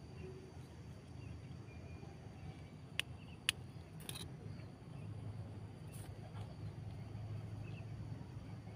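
Quiet outdoor background with a low steady hum, broken by two sharp clicks about three seconds in and a few faint rustles from hands handling string and a small knife at a bamboo stem.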